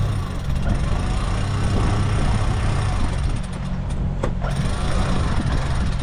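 Sailing catamaran's engine running steadily, a constant low hum under even background noise, as the boat motors slowly.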